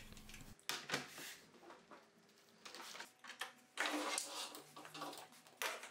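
Workshop handling noises: a scattered series of short knocks, clatters and rustles as a track saw is moved and its power cord and dust-extraction hose are handled at the bench.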